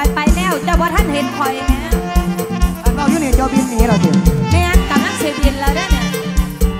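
Mor lam band music: a held chord drone under a lead melody that slides up and down in pitch, driven by a steady kick-drum beat.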